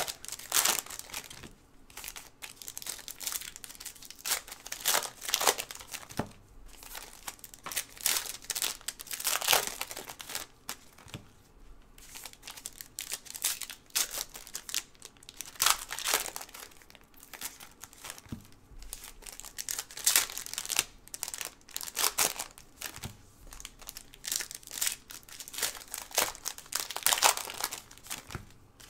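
Trading-card pack wrappers crinkling and tearing as gloved hands rip the packs open and shuffle the cards, in irregular rustles every second or so.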